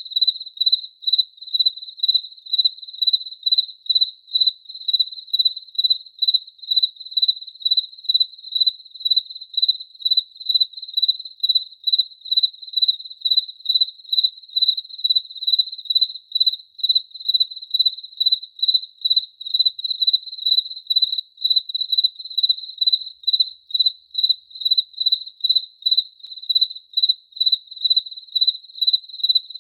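A cricket chirping steadily in an even rhythm of about two high, clear chirps a second.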